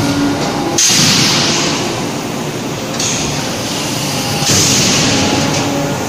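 Electric screw forging press working a red-hot shackle blank: a loud, steady mechanical din with bursts of hissing noise that start suddenly about a second in, at three seconds and again at four and a half seconds.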